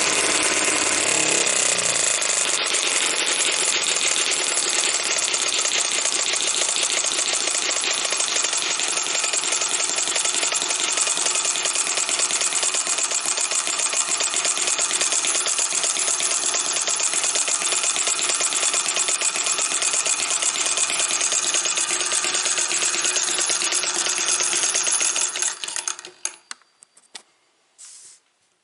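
M17-B micro model engine, a single-cylinder spark-ignition engine with brass flywheels, running fast with a rapid, even firing rattle. It dies away abruptly about 25 seconds in as the engine stops.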